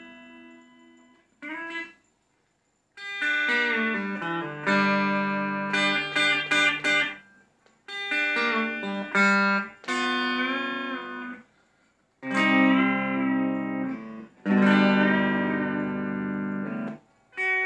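Electric Telecaster fitted with a Re-Lapz B-bender, played clean through a small amp: several short chordal phrases separated by brief pauses. Notes within the chords are bent up and back down in a pedal-steel style.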